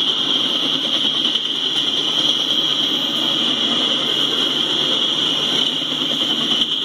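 Double-stack intermodal freight train's well cars rolling past at speed: a steady rumble of wheels on rail under a constant high hiss, heard through a live train camera's audio feed.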